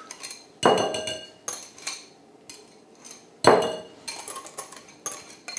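Metal wire whisk knocking and scraping against glass bowls while cream and Schmand are scraped from one bowl into another. There are about eight sharp clinks, each ringing briefly, with the two loudest about half a second and three and a half seconds in.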